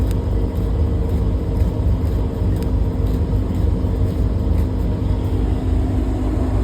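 Steady machinery running, with a heavy low drone and a couple of steady hum tones, and a few faint clicks over it.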